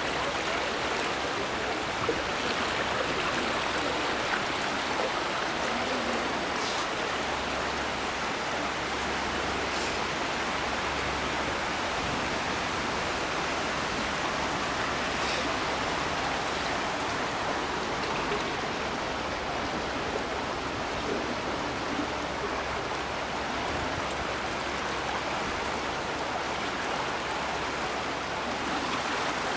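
Water rushing steadily through the concrete basins of a vertical-slot fish ladder, a constant even noise.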